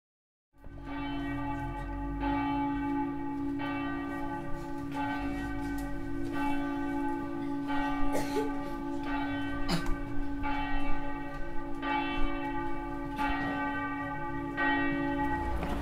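A single church bell tolling, struck about once every second and a half, with its low hum tone ringing on between strokes.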